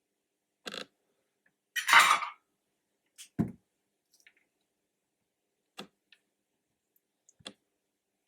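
Hand tools and small parts being handled on a workbench: a handful of separate clicks and knocks, the loudest a short rattle about two seconds in.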